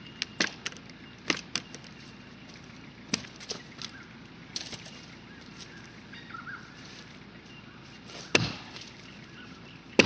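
Axe chopping into a fallen log: a series of sharp, irregular knocks, several close together in the first two seconds and the loudest about eight and a half seconds in.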